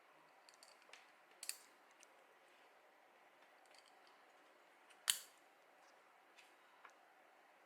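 A few scattered sharp clicks and snips of plastic parts being handled and cut, the loudest a single crisp click about five seconds in, over faint room tone.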